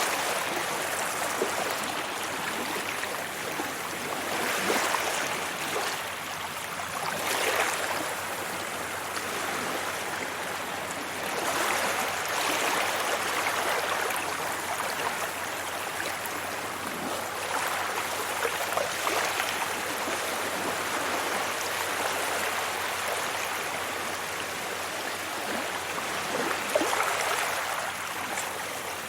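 Sea waves breaking and washing up a beach: a continuous rush of surf that swells and ebbs every few seconds.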